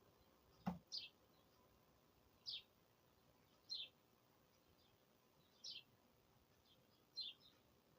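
A single bird repeating a short, high chirp every second or two, over faint background hiss. A sharp click sounds once, less than a second in.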